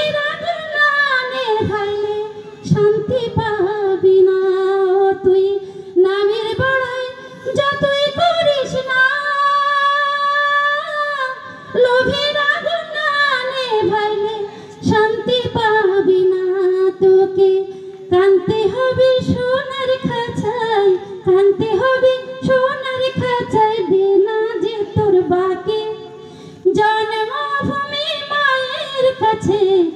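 A woman singing a Bengali song about the motherland unaccompanied into a handheld microphone, in long held notes that waver and bend in pitch, with short breaths between phrases.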